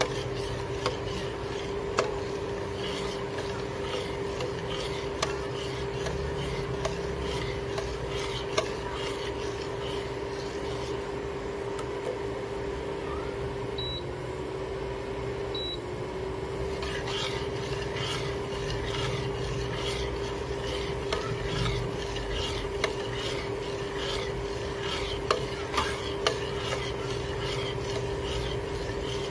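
Metal spoon stirring and scraping around a stainless steel pot of chocolate milk and gelatin mixture as it heats toward the boil: a rhythmic scraping that eases off for a few seconds in the middle. Underneath runs a steady hum.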